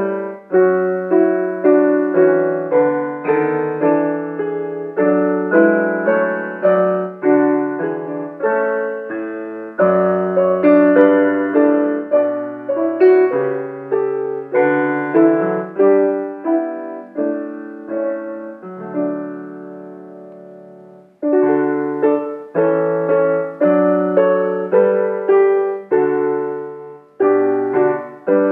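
Piano playing a hymn tune in full chords, about one struck chord a second, each dying away. About eighteen seconds in, a chord is held and fades out at the end of a verse, and the playing starts again about three seconds later.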